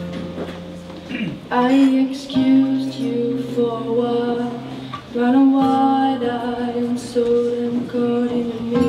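A young woman singing a slow song with long held notes into a microphone, accompanied by a nylon-string classical guitar.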